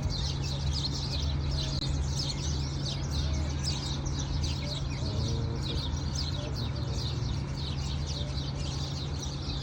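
Chorus of many small birds chirping, short high chirps overlapping without a break, over a steady low hum.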